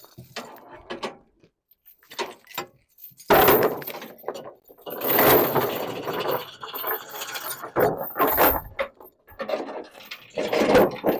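Steel tie-down chain and its binder hardware clanking, rattling and scraping in several separate bursts as the chain is pulled tight by hand.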